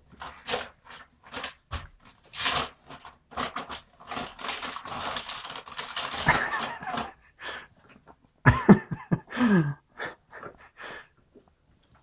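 A toddler's breathy panting and huffing in short bursts, with a louder voiced sound about eight and a half seconds in that falls in pitch.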